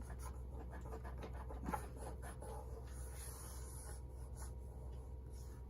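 Masking tape being rubbed down firmly onto a model-railway control panel, so spray paint cannot creep under it: light, scratchy rubbing with a few faint ticks, over a steady low hum.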